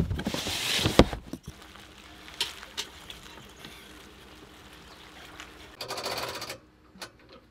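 A heavy plastic storage tote set down on an aluminium bass-boat deck: a couple of loud thumps with rustling handling noise between them. After that come a few faint clicks and a short rattling burst near the end.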